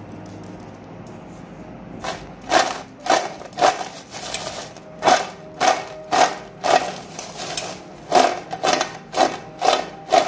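Freshly fried potato fries being tossed and shaken in a steel bowl to coat them with chaat masala. They rattle against the metal in a steady rhythm of about two shakes a second, starting about two seconds in.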